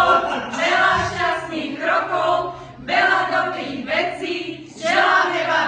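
A group of women singing together in short repeated phrases, about one a second.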